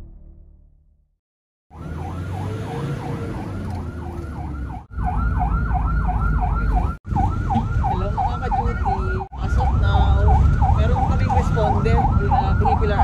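Electronic emergency-vehicle siren in a fast yelp, rising and falling about three times a second, heard from inside a moving vehicle over engine and road rumble. It starts about two seconds in, after the tail of fading music, and breaks off for a moment three times.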